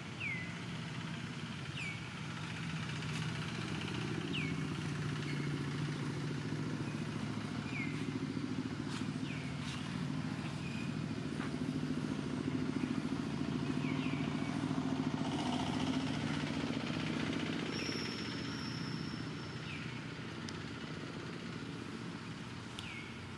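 A motor vehicle engine running nearby, growing louder through the middle and easing off near the end. Over it, a short high chirp that slides downward repeats about every two seconds.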